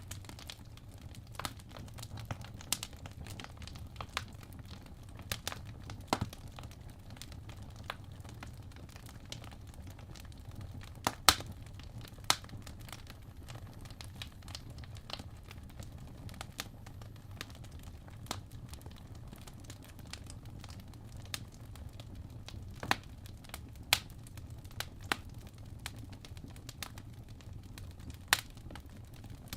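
Fire crackling: irregular sharp pops and snaps over a low steady hum, with a couple of louder snaps about eleven seconds in and another near the end.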